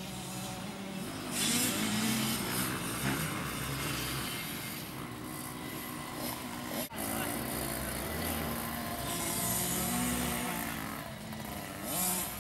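Small children's minicross dirt bike engines running and revving, with a brief dropout about seven seconds in.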